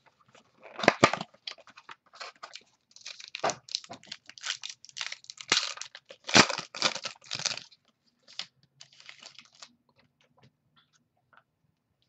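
Hands opening a box of football trading cards. A quick string of short crinkling, tearing and rustling noises as the packaging comes open and the cards are handled, thinning out and fainter after about eight seconds.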